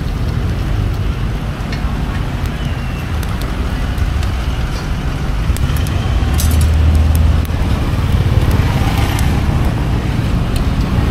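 Busy street market ambience dominated by the steady low rumble of motor traffic, with one engine passing louder about six seconds in, and small clicks and clatter scattered throughout.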